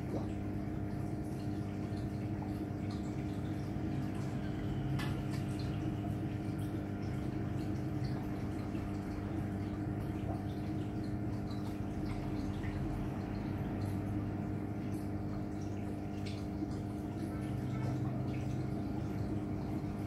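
Aquarium filter running: water trickling and dripping over a steady hum, with faint small ticks.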